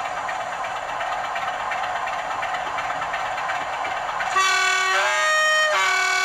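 Sound-fitted OO gauge Bachmann Class 47 model locomotive playing its diesel engine sound through its small onboard speaker, then, about four seconds in, sounding its two-tone horn: a low note, a higher note, then the low note again.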